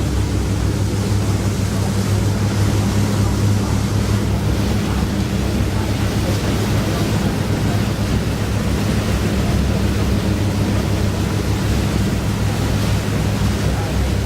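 Tour boat's engine running steadily under way, a low even hum beneath the rush of water along the hull and wind buffeting the microphone.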